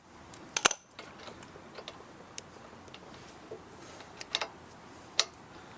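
Socket ratchet clicking in short, irregular runs of sharp ticks as it is worked counterclockwise to loosen a motorcycle brake caliper's slider pin.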